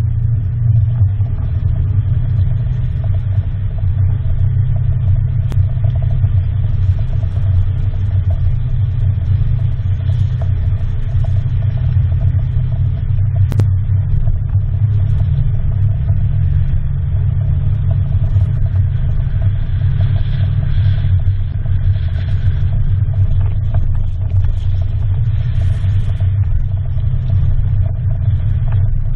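Engine running steadily, a loud continuous low drone with no revving, with a few faint clicks over it.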